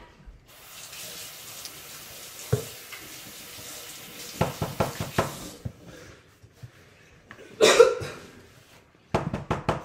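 Water running from a kitchen tap for about five seconds, with a few clinks of dishes. A short run of quick knocks comes near the end.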